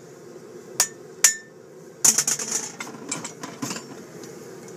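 Hand hammer forging a knife blade on an anvil: two sharp, ringing blows about half a second apart, then about two seconds in a quick flurry of lighter metallic clinks and a few scattered taps.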